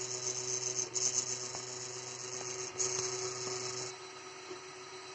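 Creality Ender 3 Pro 3D printer running with a steady hum and a high hissing whir that comes in stretches with short breaks, then stops about four seconds in, leaving the hum. This is the unusual noise the printer is making.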